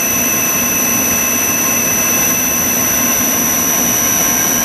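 Spindle of a Mollart Omnisprint LD2-750 CNC gun drilling machine running with no load at about 1,000 to 1,500 rpm: a steady whir with several constant high whines.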